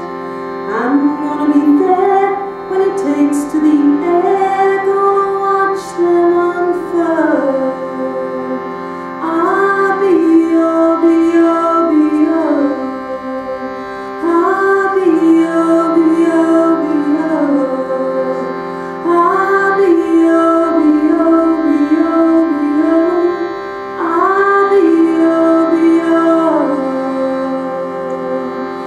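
A woman singing a slow melody in long phrases with short breaths between, over a steady unbroken drone from a hand-pumped shruti box.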